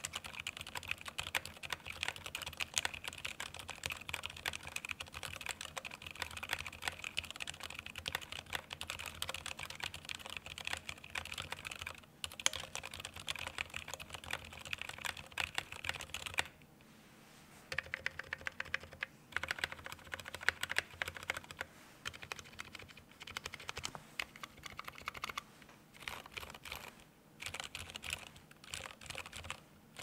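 Typing on a Gray Studio Space65 R1 mechanical keyboard with stock Gateron Silent Ink switches, a carbon fiber plate and GMK keycaps: a steady stream of quiet, muted keystrokes. The typing breaks off briefly twice around the middle.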